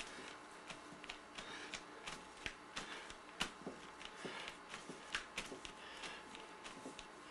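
Fingertips dabbing and tapping wet paint onto a painting surface: faint, irregular soft taps and clicks, a few a second, with light rustling between them.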